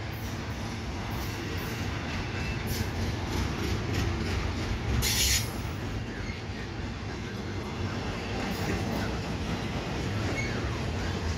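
Double-stack intermodal freight train rolling past: a steady rumble of wheels and well cars on the rails, with scattered clanks and a brief high screech about five seconds in.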